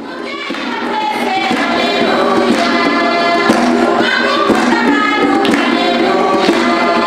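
Church choir of children and adults singing together, with a steady beat about once a second.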